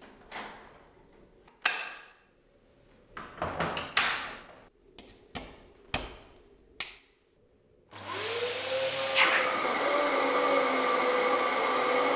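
Several sharp plastic clicks and knocks, then, about eight seconds in, a Dyson DC07 upright vacuum cleaner is switched on. Its motor spins up with a rising whine and then runs steadily.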